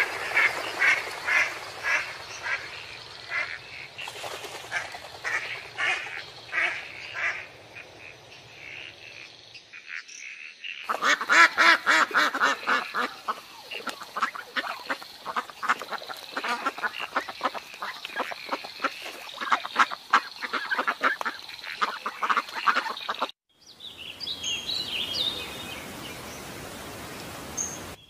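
Ducks calling in repeated quacks for the first third, then a flock of domestic geese honking densely, louder and busier, for about twelve seconds. The last few seconds are quieter, with a faint hiss and a few high chirps.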